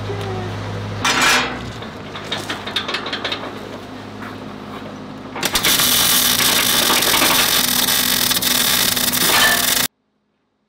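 An angle grinder runs and bites briefly into the steel about a second in, followed by light metal clatter. Then, about five and a half seconds in, a welding arc on steel crackles steadily for about four seconds and stops abruptly.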